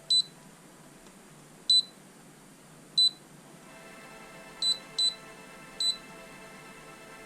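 Lowrance HDS5 fish finder giving short high key-press beeps as its buttons are pressed to change settings: six beeps, spaced a second or more apart at first, then coming closer together near the end, with two in quick succession.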